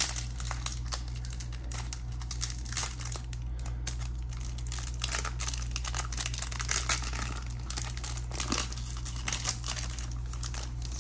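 Foil wrapper of a trading card pack crinkling and crackling irregularly as it is handled and torn open.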